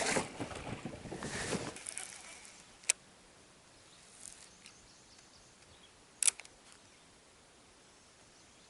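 Rustling handling noise that dies away within the first two seconds, then two sharp clicks or knocks about three seconds apart over quiet.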